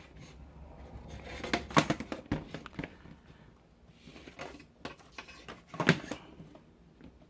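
Handling noise of a small plastic smart plug being set back upright on a surface, with a few light knocks and rubs. The loudest knock comes about six seconds in.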